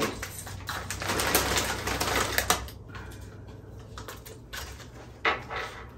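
Quick dry clicks and crackles of crunchy chips, busiest in the first couple of seconds, then sparser, with one sharper click about five seconds in.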